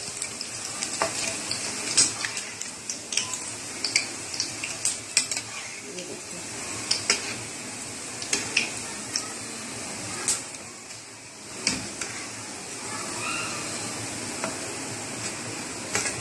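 Gram-flour-battered onion pakoras deep-frying in oil with a steady sizzle. Frequent short clicks and scrapes of a utensil against the pan as the pakoras are stirred and turned.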